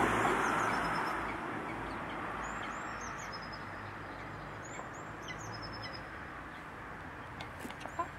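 Short, high bird calls come in three quick bouts a couple of seconds apart. Under them runs a steady roar of city traffic that fades over the first two seconds.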